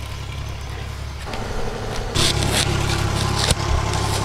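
Lid of a large aluminium cooking pot scraping and rattling against the pot's rim as it is shifted off after the rice water is drained, with one sharp knock about three and a half seconds in. A steady low hum runs underneath.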